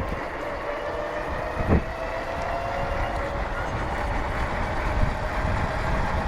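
Ecotric 500 fat-tire electric bike riding along: a steady whine from the hub motor over low tyre and wind rumble, with a thump a little under two seconds in.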